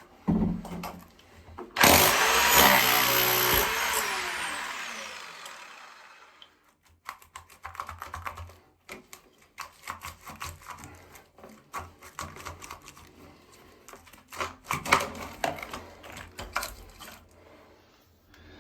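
A power tool runs in a short loud burst about two seconds in, then winds down and fades over several seconds, as used for cutting away an old toilet pan's cement base. Scattered knocks and scrapes follow, with a louder cluster near the end.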